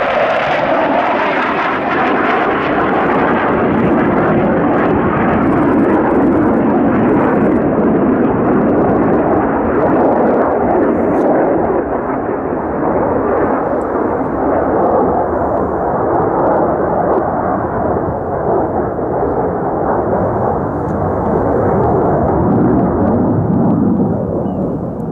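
Loud, steady jet noise from a Mitsubishi F-2 fighter's single F110 turbofan as it flies display manoeuvres overhead, easing off slightly near the end.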